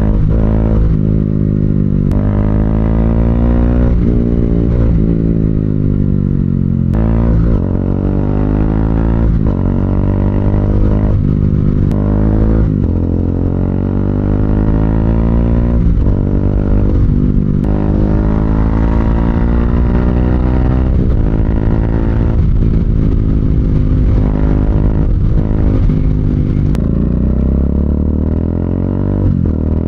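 Single-cylinder Bajaj Dominar engine running through a Two Brothers slip-on muffler while riding, its pitch repeatedly climbing and dropping as it speeds up and changes gear. The exhaust note is steady with no popping, the leak at the slip-on joint now sealed.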